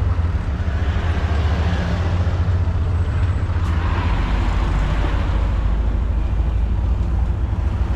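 Steady low rumble of a running vehicle with road and wind noise, as heard from a vehicle on the move.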